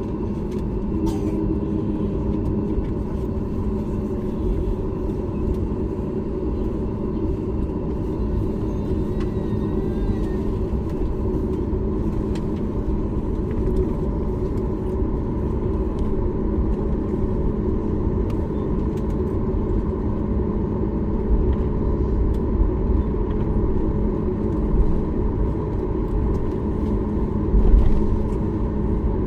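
Steady cabin rumble of a Boeing 737 MAX 8 with its CFM LEAP-1B engines running, with a steady hum under it and a brief thump near the end.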